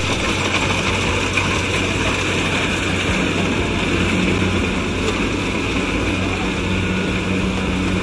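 Machinery running steadily: a constant low hum under a bright hiss, with no change in speed.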